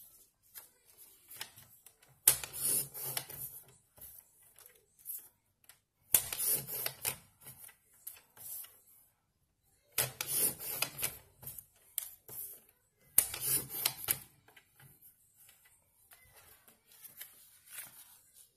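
Hands handling paper on a journal page: four bursts of rustling and rubbing, each about a second long, with softer taps and rustles between them, as photo prints are pressed and smoothed onto the page.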